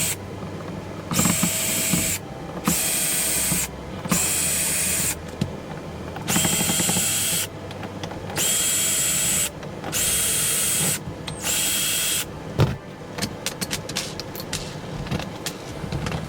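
Cordless drill-driver run in seven short bursts of about a second each, backing out the screws that hold an interior access panel. Near the end a sharp knock, then a run of light clicks and rattles.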